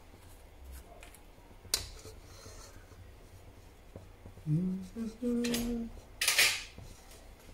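Metal spatula tapping and scraping against a metal wok while stirring brown sugar in oil: a sharp tap a couple of seconds in and a louder scrape near the end, with a brief low voice murmuring in between.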